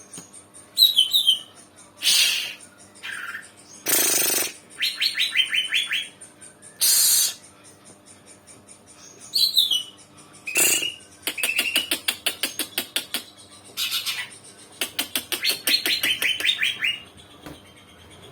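Young cucak ijo (green leafbird) starting to sing: short raspy hissing calls mixed with quick high chirped phrases. Twice it breaks into a long rapid run of repeated notes, in the middle and near the end.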